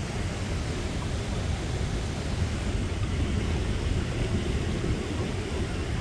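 Steady rushing of a stream flowing over rocks, mixed with a low rumble of wind on the microphone.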